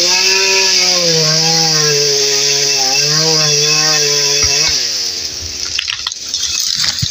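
Chainsaw running at high revs in a cut, its pitch wavering under load. About four and a half seconds in the throttle is let off and the revs slide down. A few sharp cracks and knocks follow near the end.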